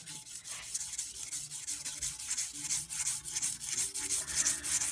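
Fine-grit strip sandpaper dressed with Autosol metal polish being pulled back and forth by hand around the journal of a Tecumseh Snow King snowblower crankshaft, a rapid, even series of rasping strokes. The crank is being resurfaced to polish out grooves in the journal.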